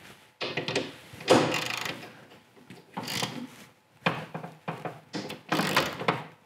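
A socket wrench fitted to and pulled on the bolts that hold a snowmobile's rear suspension to its tunnel, checking their torque: several short bouts of metallic scraping and clunking, a second or so apart.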